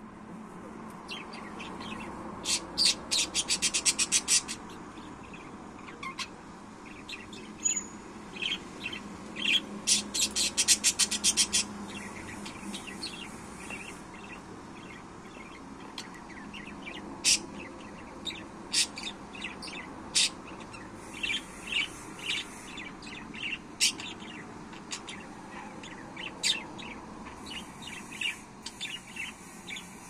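Budgerigars chirping and chattering: two fast runs of short clicking calls, one a few seconds in and one around ten seconds in, then scattered single chirps.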